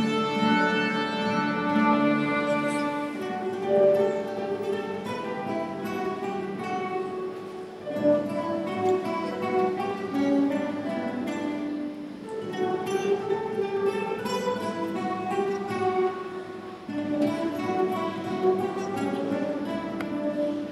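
School ensemble of violins and classical guitars playing a classical Christmas piece, the melody moving in phrases of a few seconds each.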